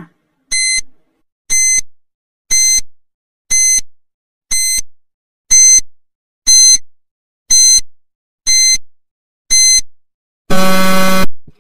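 Countdown timer sound effect: ten short, high electronic beeps, about one a second, ticking off the ten seconds given to think. Near the end a louder, lower buzzer lasting under a second ends the countdown.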